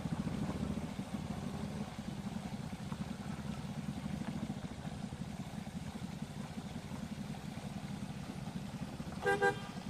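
A vehicle engine runs steadily at low revs as a low rumble. A short pitched sound comes near the end.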